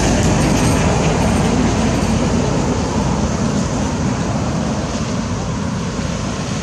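Loud, steady low rumbling noise, without clear separate strokes.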